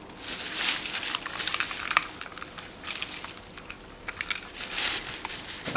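Carrots and onions being handled and put on a kitchen scale: irregular rustling and crinkling with light knocks, coming in several bursts. A short high beep sounds about four seconds in.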